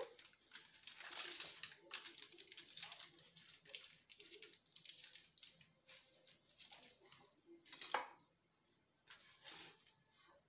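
Parchment paper crinkling and rustling as biscuit dough is pressed and rolled into a log in it and then unwrapped, with a sharper tap about eight seconds in.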